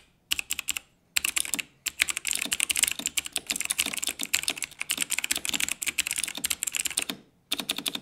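Typing on a mechanical keyboard with Razer Green clicky switches: a fast, dense run of sharp clicks, broken by short pauses near the start, about a second in, and shortly before the end.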